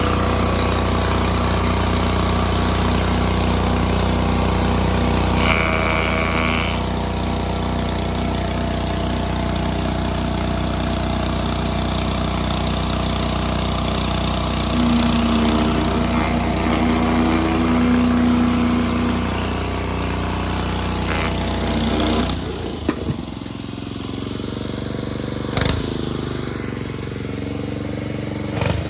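Gas pressure washer engine running steadily under load, with the hiss of water spraying from a Ryobi 15-inch surface cleaner working over stone pavers. About 22 seconds in, the engine and spray sound cuts off abruptly and a quieter, different background takes over.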